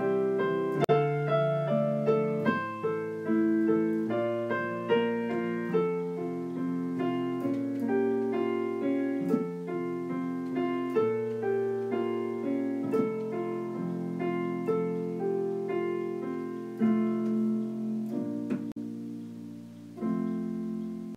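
Solo piano playing a slow piece of chords and melody notes, each note struck and left to ring. It eases off near the end, and a fresh chord is struck about twenty seconds in.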